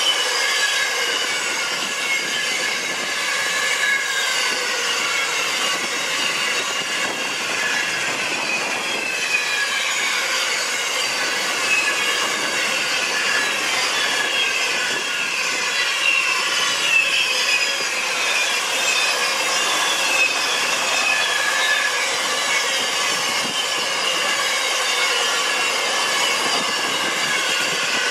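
Train wagons rolling past, their wheels squealing in many high, wavering tones that slowly slide up and down over a steady rolling rumble.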